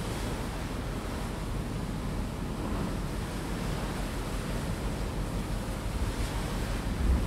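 Steady rush of wind and sea water around a passenger ferry under way, with low wind buffeting on the microphone that briefly strengthens near the end.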